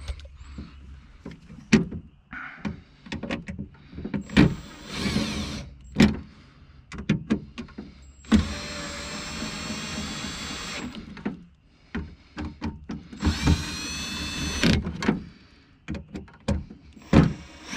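Nissan 350Z power window motor running twice, for about two and a half seconds and then about a second and a half, the second whine rising in pitch. Between the runs come knocks and clicks of the door's window parts being handled and fitted.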